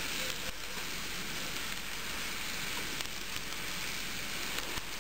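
N scale coal hopper cars rolling past close by, their wheels on the track making a steady rattling hiss, with a few faint clicks.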